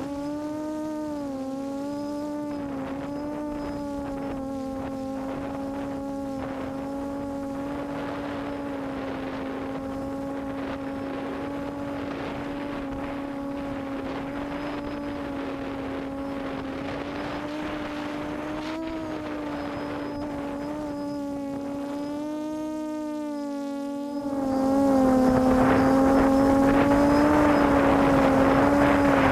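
QAV400 quadcopter's electric motors and propellers, heard from its on-board camera: a steady buzz that wavers slightly in pitch as the throttle shifts. About 24 seconds in it gets clearly louder and rougher.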